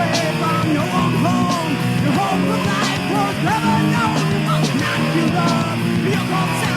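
Thrash metal band with a punk edge playing: full band with drums, bass and guitar, with notes bending up and down over the riff.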